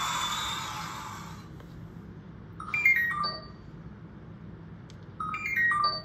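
A played sound effect: a hissing noise with a faint whistling tone fades out about a second and a half in. Then a short electronic jingle, a quick run of four or five mostly falling notes like a phone ringtone, plays twice, a little over two seconds apart.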